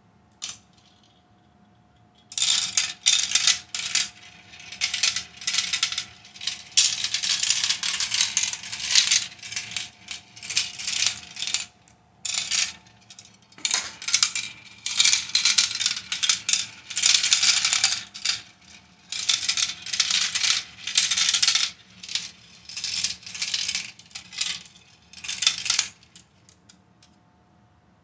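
Glass marbles clattering and rattling down a plastic marble run, in irregular bursts of quick clicks that start about two seconds in and stop a couple of seconds before the end.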